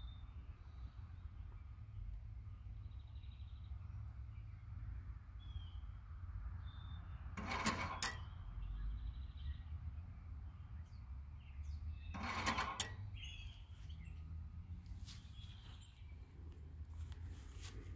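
Crouse-Hinds electromechanical traffic signal controller stepping its camshaft twice, each step a short sharp clunk, about 7.5 and 12.5 seconds in, as the signals change phase. Faint bird chirps and a low outdoor rumble run underneath.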